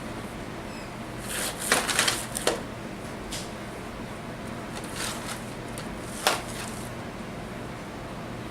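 A few short rustles and clicks, with a cluster about a second and a half to two and a half seconds in and single ones later, over a steady low hum.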